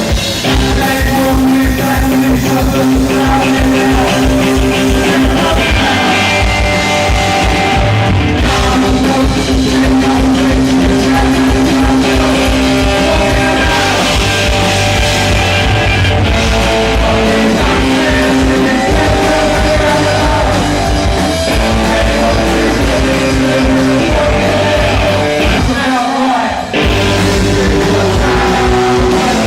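Punk rock band playing: electric guitars, bass and drums with singing, loud and continuous, with a brief break near the end.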